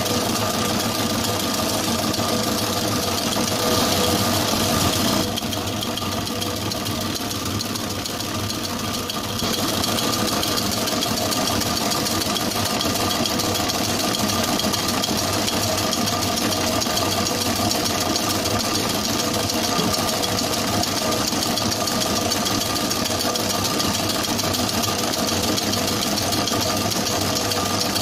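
Commercial planetary mixer running steadily, its motor and gears humming as the wire whisk beats sponge cake batter in the steel bowl. The sound dips slightly and turns duller for a few seconds about five seconds in.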